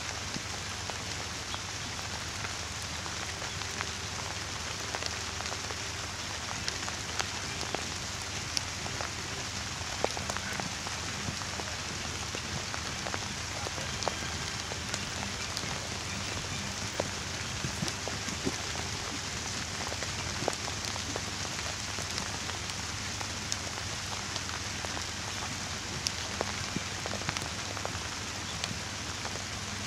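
Steady hiss of rain, dotted with scattered sharp ticks of single drops striking close by.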